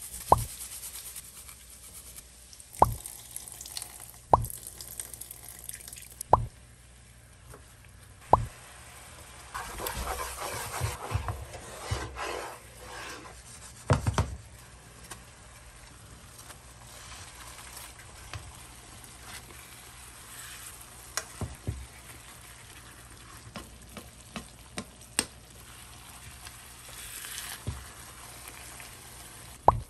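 Cooking in a frying pan: oil sizzling softly, broken by sharp taps of metal utensils against the pan, five of them in the first eight seconds. Around ten to fourteen seconds a spatula stirs the sauce in the pan with a louder stretch of scraping and sizzle, and later a spoon clinks as it bastes the chicken.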